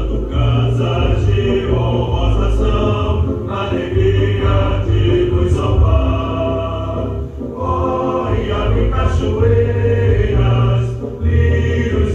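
Recorded civic anthem sung by a choir with instrumental accompaniment, played loud and without a break.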